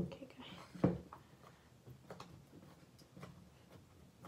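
Butter slime being squeezed and kneaded by hand in a plastic tub: faint, scattered sticky clicks and pops. There are two louder knocks in the first second.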